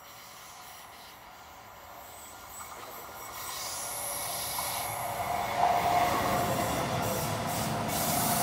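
SBB electric multiple-unit passenger train approaching and passing close by on the curve. The wheel and rail noise grows steadily louder as it nears, and a steady high-pitched tone joins about five and a half seconds in.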